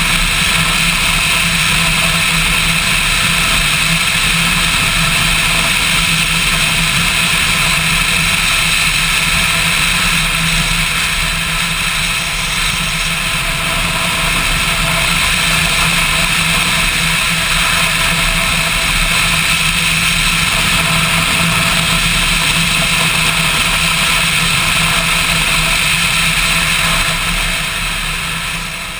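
Motorcycle engine running steadily at cruising speed with wind rushing over a bike-mounted camera; it quietens a little near the end.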